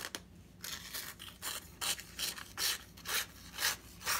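A chef knife's edge scraping along the edge of a magazine page in short strokes, about two a second, in a paper test of sharpness. The dull edge grabs and rasps on the paper, a sign that it is not very sharp.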